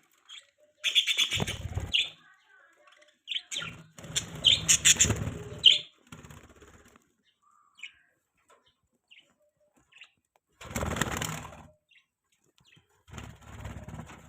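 Budgies chirping in sharp, high calls mixed with fluttering wing flaps, in four spells of one to two seconds separated by pauses.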